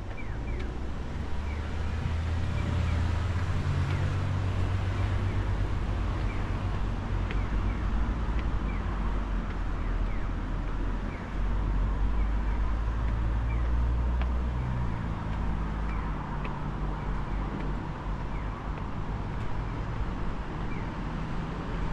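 Low rumble of motor-vehicle traffic with engines running, swelling and easing as vehicles pass, while short high chirps repeat every second or so.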